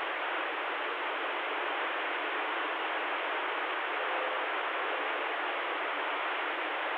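CB radio static: a steady hiss through the receiver's speaker with no voice readable in it, the open channel between transmissions.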